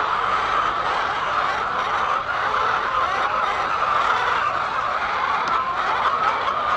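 A flock of chickens calling all at once, a steady dense chatter of overlapping clucks.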